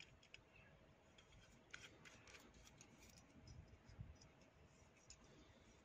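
Near silence, with faint, scattered small clicks as parts of a GM12F carburettor are handled and a small brass fitting is fitted into its aluminium body.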